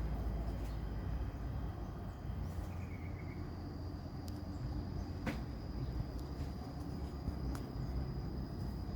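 Outdoor ambience: a steady high insect-like tone over a low rumble, with a couple of sharp clicks.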